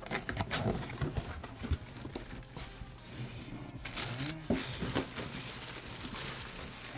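Cardboard box flaps being pulled open and handled with scattered taps and scrapes, then the thin plastic bag wrapped around a motorcycle helmet crinkling as hands grip it inside the box.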